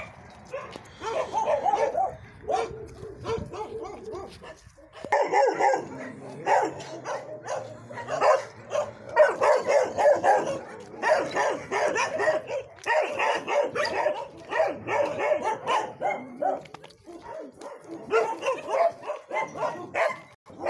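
Dogs barking and yipping, short barks in quick runs that overlap, easing off briefly about four seconds in and again a few seconds before the end.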